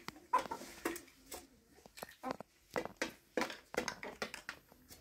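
Irregular light knocks and clatters, about two or three a second, with quiet gaps between them.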